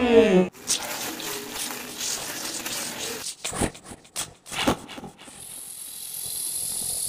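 A droning tone slides down in pitch and stops just after the start. Then a plastic bag of vegetable scraps is thrown onto wet ground beside a drain, giving three sharp thuds in quick succession about three and a half to five seconds in. A high hiss follows and swells toward the end.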